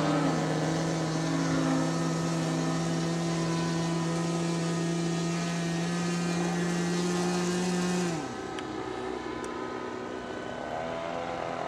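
Gasoline engine of an Extreme Flight Extra 300 RC aerobatic plane, a B60 gasser, droning at a steady high pitch in flight. About eight seconds in, its pitch falls and the sound drops away. Near the end it rises again.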